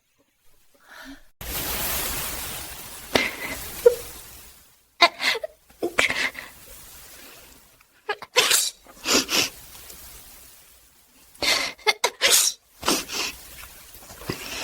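Repeated sneezing in AI-generated audio: a steady hiss for the first few seconds, then sneezes coming in pairs about a second apart, with more near the end.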